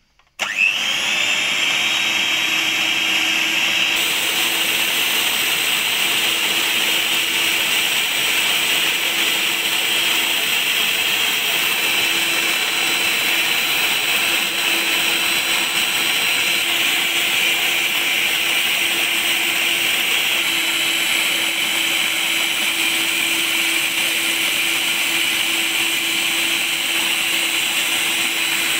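Electric stand mixer switching on about half a second in, its motor whine quickly rising to speed, then running steadily as the beaters whip cream.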